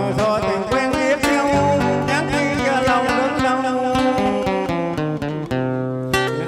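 Acoustic guitar played solo, plucked melody notes ringing over low bass notes: an instrumental interlude between sung lines.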